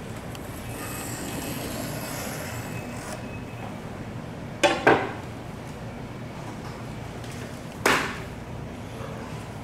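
Sharp knocks of a knife and tuna loin on a wooden cutting board during the cutting of a bluefin tuna loin: two close together about halfway through, one more near the end, over a steady background hum.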